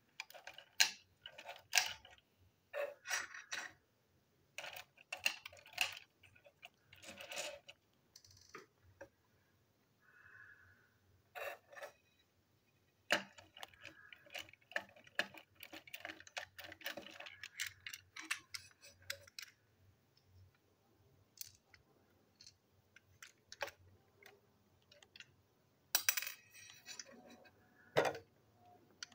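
Plastic toy engine parts and small metal screws being handled: irregular clicks, taps and light rattles as the body shell and chassis are fitted together by hand, with a quieter stretch past the middle.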